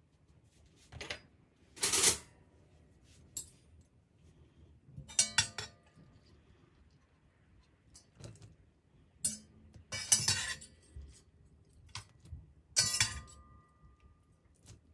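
Metal utensil clinking and scraping against a copper saucepan and a ceramic plate while cooked fettuccine is lifted out and laid on the plate. It comes as a string of separate short clinks and clatters, some with a brief metallic ring.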